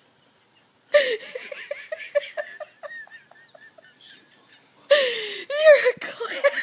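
Baby laughing in high-pitched bursts with breathy gasps. A loud squeal about a second in runs into a quick string of short ha-ha pulses, and a second loud burst with falling pitch follows near the end.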